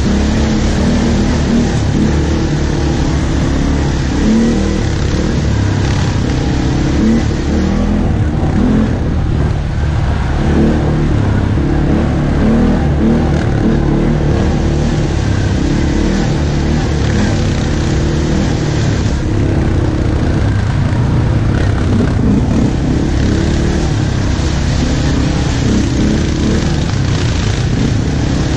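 ATV (quad bike) engine running close by at trail speed, its note wavering a little as the throttle changes, with a rushing noise over it the whole time.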